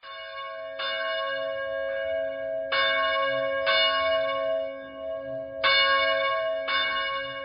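A church bell struck over and over, about once a second with one longer gap midway, each stroke ringing on under the next.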